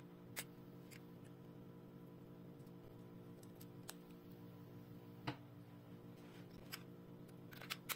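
Faint sharp clicks of a digital luggage scale's plastic battery cap being handled and fitted over a coin-cell battery: one about half a second in, the loudest around five seconds, and a small cluster near the end, over a low steady hum.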